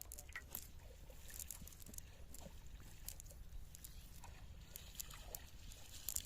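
Light, irregular splashing and sloshing of water over a steady low rumble.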